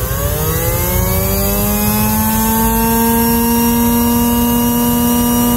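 Small electric motor spinning up, its whine rising in pitch for about two seconds and then running steady, over a low rumble.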